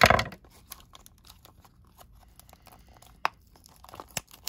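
Small cardboard toy box being cut and torn open by hand: a short loud rip at the start, then scattered small clicks and crinkles of the cardboard.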